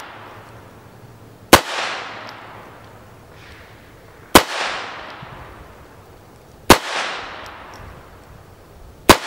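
High Standard Dura-Matic semi-automatic pistol firing high-velocity .22 LR rounds: four single shots spaced about two and a half seconds apart, each with a short echoing tail.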